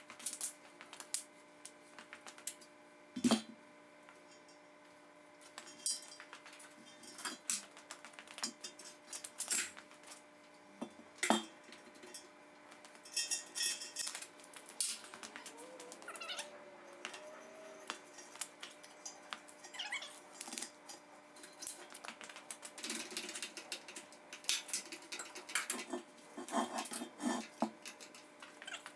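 Chain and metal clinking and clanking as a heavy steel trunnion stand is rigged to an engine hoist and lifted. The clanks come irregularly and grow busier in the last few seconds. About halfway through, a drawn-out squeak rises and then falls for a couple of seconds.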